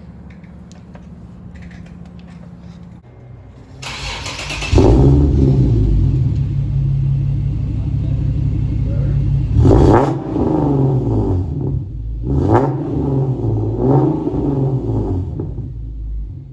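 Infiniti G37's 3.7-litre V6 starting up about four seconds in, then running and being revved in several sharp blips.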